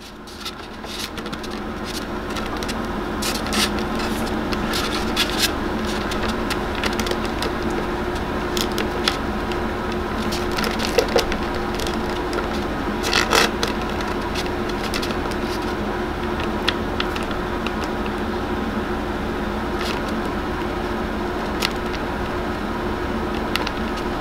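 Scattered clicks and taps of a plastic action figure being handled and posed on a tabletop, its joints and parts knocking, over a steady hum that swells up in the first couple of seconds.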